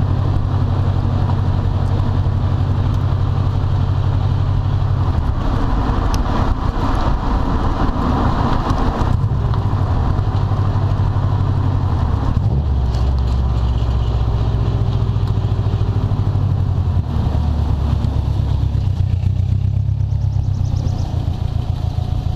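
2012 Subaru WRX's turbocharged flat-four running through an aftermarket turbo-back exhaust, the car under way with the engine note shifting to a new pitch several times.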